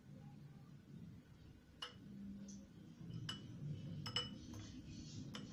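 A metal fork clinking against a glass bowl of beaten egg as a piece of chicken kofta is turned in it: about five light, ringing clinks from about two seconds in, two of them close together near four seconds.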